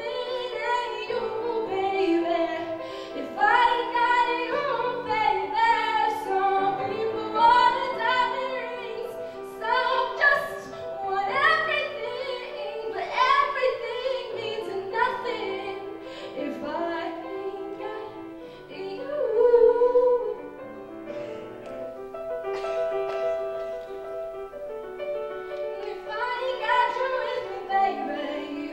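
A woman singing a ballad into a microphone while accompanying herself on a grand piano, with long held and bending vocal notes over the piano chords.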